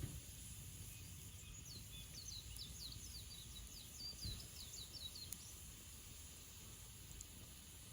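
A songbird singing a quick run of short, high, falling notes, starting about a second and a half in and stopping about five seconds in, faint over a low outdoor rumble.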